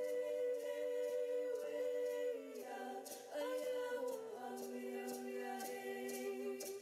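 Background music: unaccompanied voices singing long held notes in harmony, moving to a new chord about two and a half seconds in and again a second or so later.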